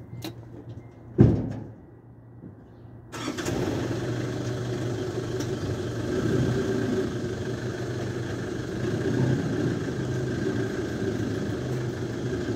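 A vehicle door shuts with a thump about a second in; about three seconds in a vehicle engine starts and then idles steadily.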